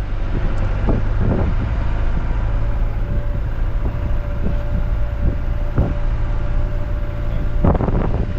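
Motor vehicle engine running with a steady low rumble, with scattered short knocks and rattles over it and a faint steady whine through the middle.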